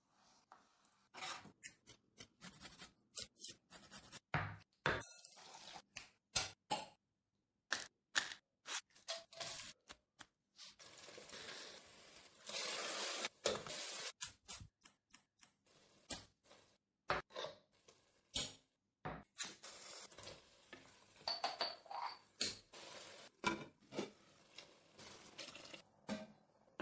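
Kitchen prep sounds: irregular sharp knife taps and clicks on a plastic chopping board as green chillies are chopped, with a spell of scraping and stirring of chopped vegetables in a glass bowl partway through.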